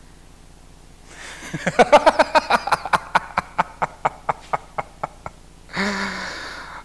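A man laughing: a run of short voiced "ha" bursts, quick and loud at first, then slowing and fading away over about four seconds, followed by a short voiced breath near the end.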